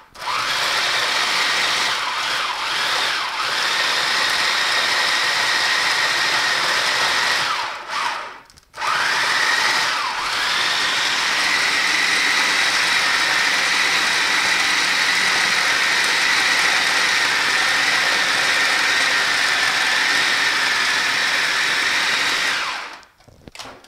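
Food processor motor running as it chops chunks of raw meat, with a steady high whine. It stops about eight seconds in, then starts again and runs much longer, the whine rising as it comes up to speed.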